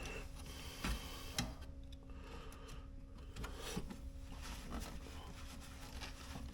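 Faint scattered clicks, light knocks and rustling from hands working on refrigerator parts, over a steady low hum.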